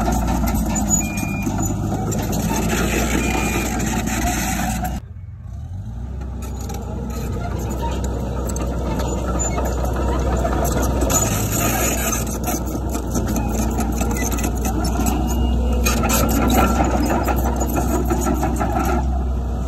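Heavy diesel earthmoving machinery running, a steady low engine drone, with a few short high beeps in the first few seconds. About five seconds in the sound drops out sharply, then builds back up over the next couple of seconds.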